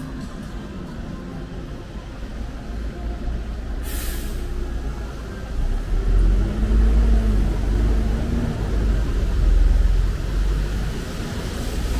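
Street traffic on a wet road: a short, sharp air-brake hiss about four seconds in, then a heavy vehicle such as a bus rumbling as it pulls past, loudest in the second half.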